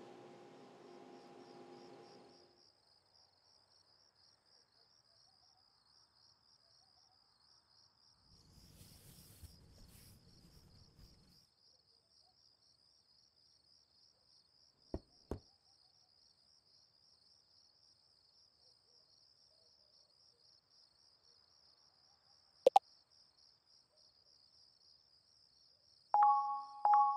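Crickets chirping steadily in a fast high pulse, with a soft rustle about a third of the way in and a few sharp clicks. Near the end a quick run of two-tone phone message chimes sets in, the loudest sound here.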